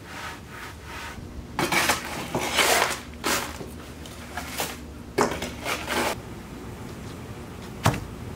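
A metal tool scraping and clanking as it works concrete, in several short bouts, with one sharp knock near the end.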